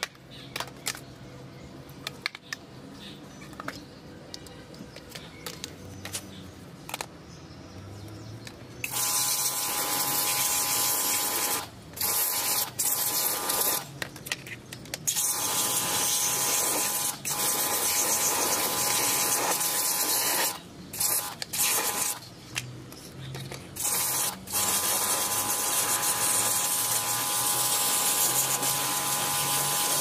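A pressure washer runs and sprays water onto plastic washing-machine panels, a steady motor hum under a loud hiss. It comes on about nine seconds in and stops and restarts several times as the trigger is let go. Before that there are only light clicks and knocks of the plastic parts being handled.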